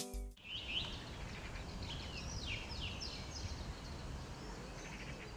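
Faint outdoor ambience: steady background noise with small birds chirping, several quick high chirps in the first few seconds and a few more near the end.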